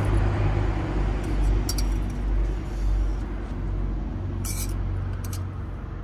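Pressure cooker venting steam to release its pressure after the lamb has stewed: a rushing hiss over a low rumble that slowly dies down. A brief metallic clink about four and a half seconds in.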